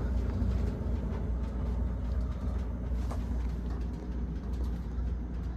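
Vintage American Standard gas furnace running with a steady low rumble, its burner already shut off. A faint click about three seconds in.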